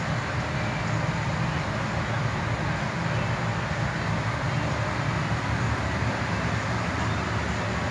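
Steady, unchanging low rumble with a hiss above it, like a vehicle moving at constant speed.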